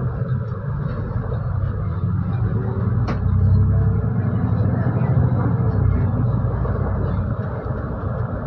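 Solaris Urbino 12 city bus driving, heard from inside at the front: a steady low rumble of the bus and its road noise, with a single click about three seconds in.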